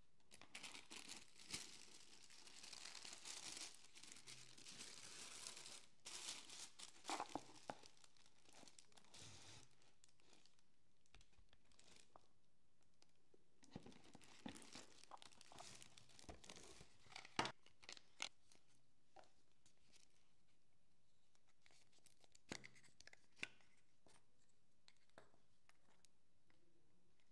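Tissue paper rustling and crinkling as it is unfolded and pulled back, over the first several seconds. After that come scattered light taps and clicks as small boxes, bottles and plastic caps are handled, the sharpest about two-thirds of the way through.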